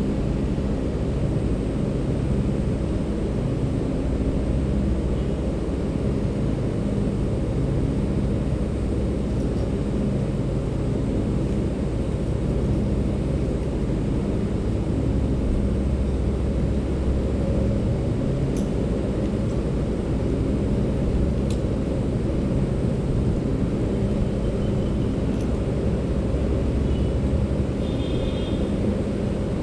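Steady low rumble with a low hum running under it, and a couple of faint ticks in the second half.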